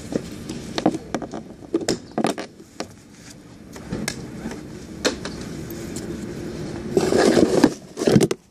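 Yamaha SMAX scooter making an abnormal noise: irregular clicks, knocks and scraping rattles over a steady low engine tone, louder near the end.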